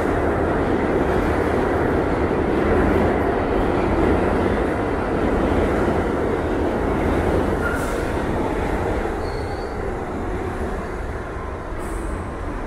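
New York City subway train running along the track, heard from inside the car: a steady rumble of wheels and motors, with a brief faint high squeal just past the middle. The noise eases somewhat in the second half.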